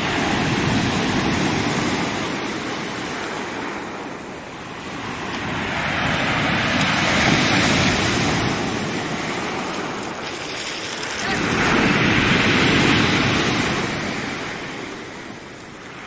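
Heavy storm surf breaking and washing up over a pebble beach, swelling and fading in three surges.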